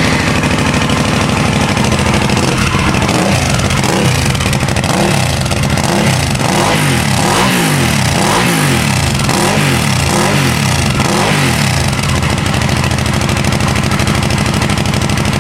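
Hyosung Aquila Pro's 650 cc V-twin running through a customized aftermarket exhaust. It idles, is revved in a series of quick throttle blips from about three seconds in until about twelve seconds, then settles back to a steady idle.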